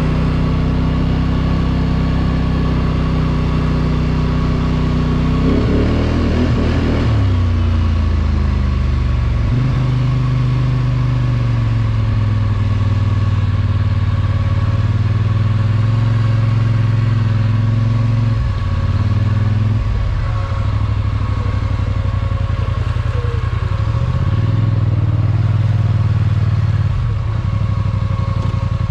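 Polaris Sportsman 850 ATV's twin-cylinder engine running, its engine speed rising and falling several times with the throttle.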